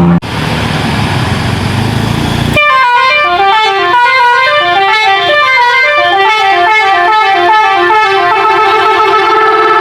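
A bus's multi-tone telolet horn playing a tune of notes stepping up and down, several tones sounding together, settling on a held chord near the end. It is preceded by about two and a half seconds of a loud rushing noise.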